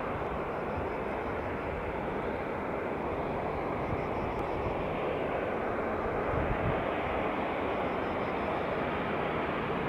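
Airbus A320-214's CFM56-5B turbofan engines on final approach with landing gear down: a steady jet noise from the approaching airliner, growing slightly louder.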